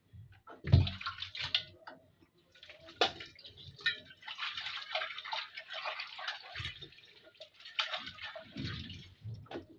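Water splashing and dripping while a metal cooking pot (sufuria) is washed, with irregular clatters of the pot; a heavy knock about a second in is the loudest sound.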